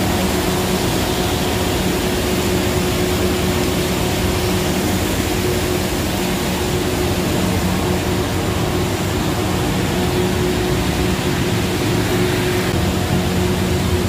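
Plastic recycling machinery running steadily: a noisy, constant mechanical hum with a steady drone, from the line that carries shredded plastic flakes.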